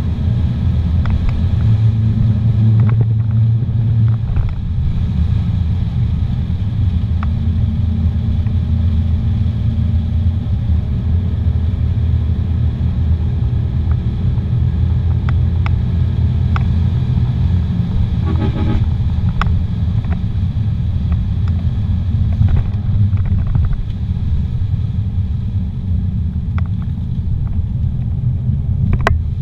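Car driving at road speed, heard from inside the cabin: a steady low rumble of engine and tyres on pavement. A brief rattle comes about two-thirds of the way through.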